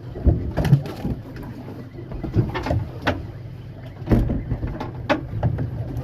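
Irregular knocks and clunks of gear being handled aboard a small fishing boat, over a steady low hum.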